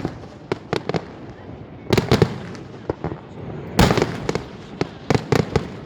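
Fireworks display: aerial shells bursting in an irregular run of sharp bangs, bunched around two seconds in and again around four seconds in, where the loudest bang falls.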